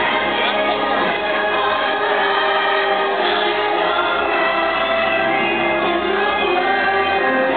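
Choral music: a choir singing over a musical backing, the light show's soundtrack, played loud and steady.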